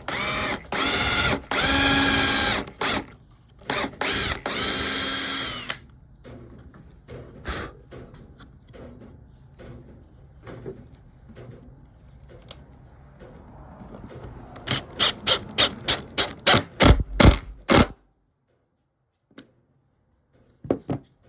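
Power drill boring a pilot hole in wood to keep it from splitting. There are two long runs of motor whine in the first six seconds, its pitch rising and falling. Some quiet handling clicks follow, then a rapid series of about ten short trigger bursts of the drill near the end.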